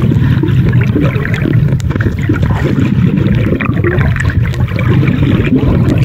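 Underwater ambience picked up by the camera: a steady, muffled rush of water with dense faint crackling.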